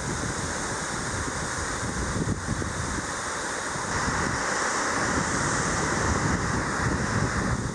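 Steady rush of water by the sea, with wind rumbling on the microphone; it grows louder about four seconds in.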